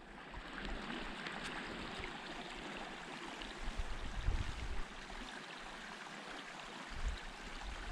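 A small stream running steadily, with a few low bumps and footfalls, louder about four seconds in and again near the end.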